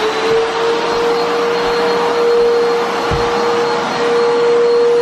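Vacuum cleaner running at full speed: a steady whine over a rushing air hiss, its motor having just spun up to speed. A brief low bump about three seconds in.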